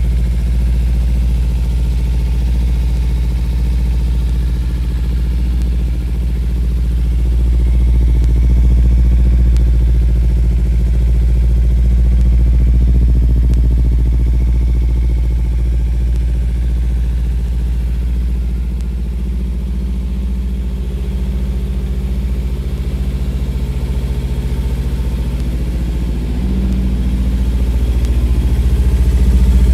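Kawasaki Ninja 300's parallel-twin engine running steadily at idle, warming up, with a slight rise in level near the end.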